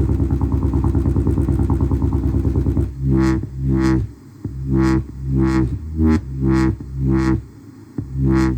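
Bass-heavy electronic music in a dubstep style. A fast, buzzing bass pulse runs for about three seconds, then gives way to separate deep bass notes that swell and fade about twice a second.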